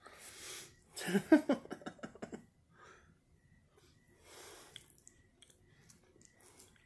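Close-up eating sounds: a breath, then a run of wet mouth clicks and smacks as a forkful of food goes into the mouth, and another breath a few seconds later.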